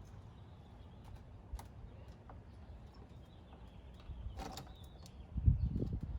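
Light clicks and taps of a car battery terminal and a metal shim being handled and worked by gloved hands. There is a brief metallic clink about four and a half seconds in, and low handling thumps near the end.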